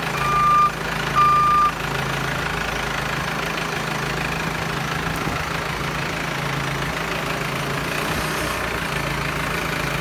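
Bull HD96 backhoe loader's diesel engine running steadily. Its reversing alarm beeps twice at the start and then stops.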